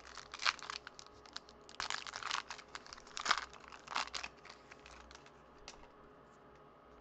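Plastic wrapper of a baseball trading-card pack being torn open and crinkled, in several bursts of crackling over the first four and a half seconds, followed by a few faint clicks as the cards are handled.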